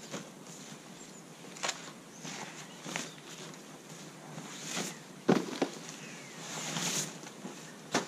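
Nylon rucksack and gear rustling as items are pulled out and set down, with scattered light clicks and a couple of sharper knocks about five seconds in.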